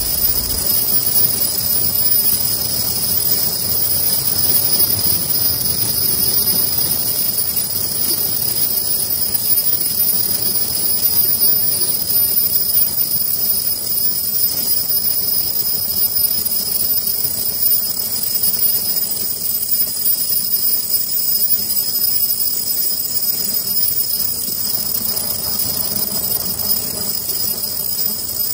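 Richpeace ultrasonic-welding disposable-sleeve machine running: a continuous mechanical clatter and rattle from its rollers and feed mechanism, with a steady high whine over it.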